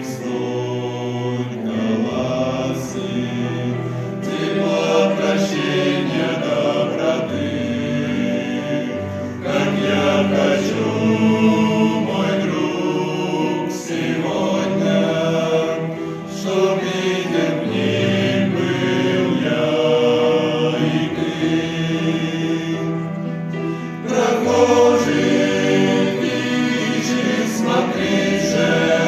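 Men's vocal ensemble singing a hymn in several-part harmony.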